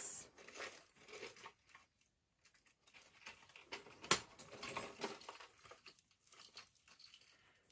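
Faint rustling and light clinks of jewelry being handled and turned over by hand, with one sharp click about four seconds in.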